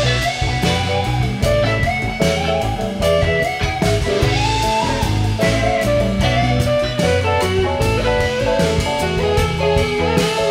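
Live rock band playing an instrumental passage: an electric guitar lead line with bent, gliding notes over bass, drum kit and keyboard.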